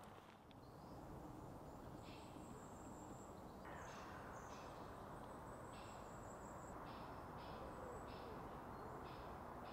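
Faint night ambience of insects calling in short, evenly repeated high pulses, about one and a half a second, with a thin, steady, higher whine above them, over a low background rumble.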